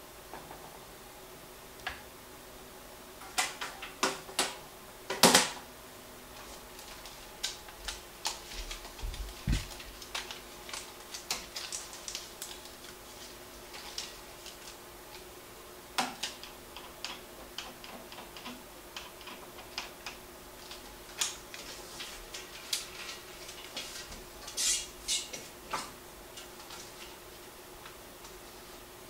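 Irregular metallic clicks and clacks of a 1950s Philips 35 mm projector being threaded with film by hand, as its sprocket roller clamps and film gate are opened and snapped shut. The loudest knock comes about five seconds in. A faint steady hum runs underneath.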